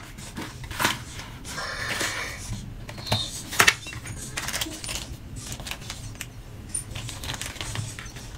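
Paper and plastic packaging being handled: rustling with scattered clicks and taps, and a sharper tap about three and a half seconds in.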